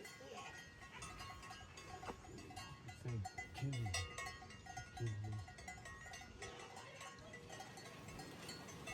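Faint clinking of livestock bells in a quick, uneven rhythm, with a few short low calls between about three and five seconds in.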